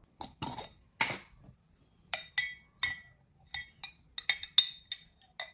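Tableware clinking: about a dozen sharp, irregular clinks of a spoon against dishes and a glass jar, the first few duller and the later ones with a short ring.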